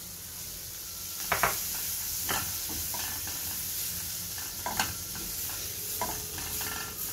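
Chopped onions sizzling in melted butter in a steel pan, being softened without browning, while a spatula stirs them and scrapes and knocks against the pan now and then. The loudest knocks come about a second and a half in.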